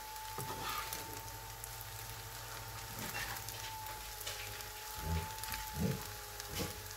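Rice and egg frying in a hot pan: a steady sizzle, with a few short, low sounds near the end.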